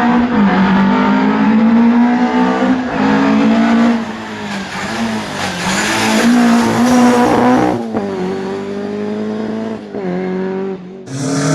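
Fiat 131 Abarth rally car's four-cylinder engine running hard at high revs, its pitch rising and falling with throttle and gear changes. The sound cuts off abruptly twice, near the end, as one stretch of engine sound gives way to another.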